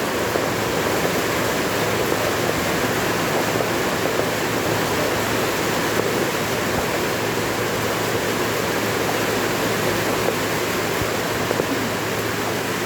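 Steady heavy rain: a dense, even hiss of falling water that does not let up.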